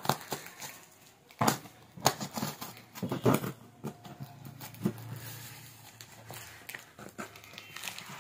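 Hands scratching and tearing at packing tape on a cardboard box and knocking the box about, in irregular scrapes, rips and knocks.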